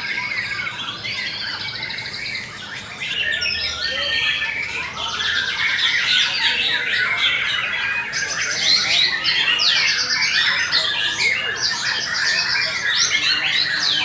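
Many caged white-rumped shamas (murai batu) singing against one another in a song contest: a dense chorus of fast, varied whistles, trills and harsh calls, swelling louder about three seconds in.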